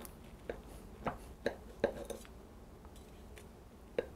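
Large kitchen knife cutting down through the crumbly baked pastry crust of a savory pie, giving soft scattered crackles and clicks, several in the first couple of seconds and one more near the end.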